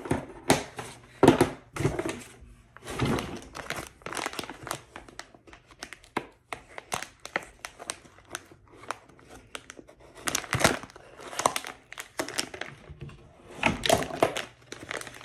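Plastic snack pouch crinkling and tearing as it is worked open, with irregular bursts of crackling throughout.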